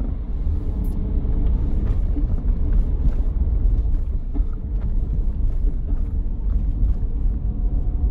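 Steady low road rumble of a moving taxi heard from inside its cabin, with a few faint scattered clicks.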